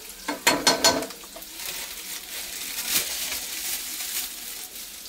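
Chopped onions and fennel seeds sizzling in oil in a kadai while a steel spoon stirs them. There are a few loud scrapes of the spoon against the pan in the first second, then a steady sizzle with light scraping.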